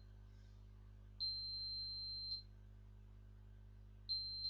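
High-pitched electronic beeps from an Arduino Morse code set-up sounding out pulses: one long beep of about a second (a dash), then a short beep near the end (a dot). A faint steady electrical hum lies underneath.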